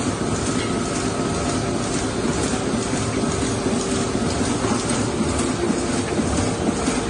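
Shinohara 75 five-colour sheetfed offset press running: a steady, dense mechanical clatter with a faint steady whine in it.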